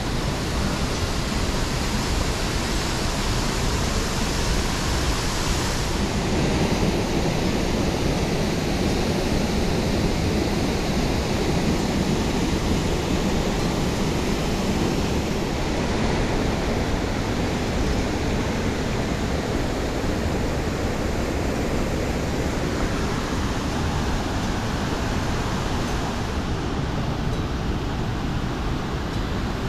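Waterfall plunging down a rock face into a pool: a steady rush of falling water.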